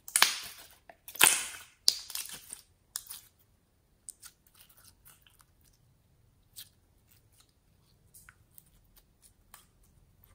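Clear pink slime squeezed and stretched by hand, crackling and squelching loudly for the first three seconds, then giving scattered soft pops and clicks as it is pressed down.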